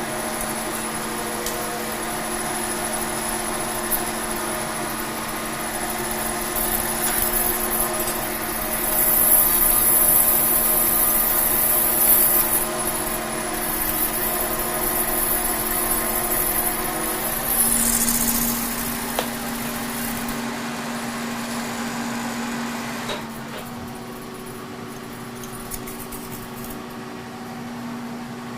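K&T horizontal milling machine set up as a lathe, running under power feed while a carbide insert takes a turning cut on a 6-inch diameter: a steady machine hum with gear tones and a high whine. The high whine falls away a little past halfway, and about 23 s in the sound drops a step while the machine keeps running.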